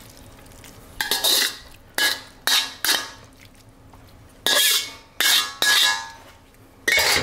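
Metal spatula scraping stir-fried noodles out of a wok: about eight short, irregular metal-on-metal scrapes, some with a brief ring.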